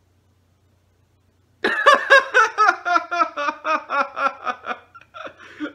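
A young man laughing heartily, starting about a second and a half in: a quick run of laugh pulses, about five a second and falling in pitch, then a few softer ones near the end.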